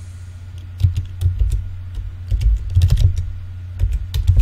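Typing on a computer keyboard: a quick, irregular run of keystrokes starting about a second in, over a steady low hum.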